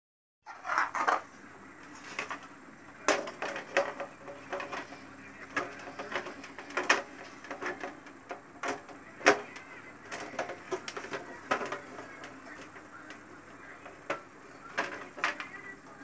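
Irregular sharp clicks and light metallic taps, about one or two a second, as a refrigerator evaporator's thin fins and frame are handled and worked by hand.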